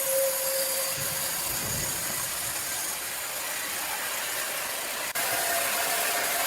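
Steady machine noise with a strong hiss, with a faint steady tone that fades about a second in; the sound shifts slightly at an apparent cut about five seconds in.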